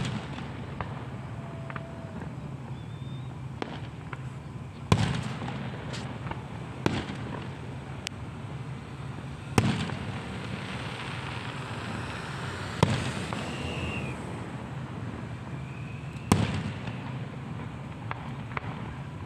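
Aerial fireworks bursting: loud bangs every three to four seconds, with smaller pops and crackling between them.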